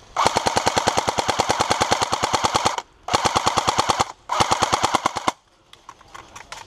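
Airsoft STG 44 replica firing on full auto: a long burst of rapid, evenly spaced shots, then two shorter bursts of about a second each.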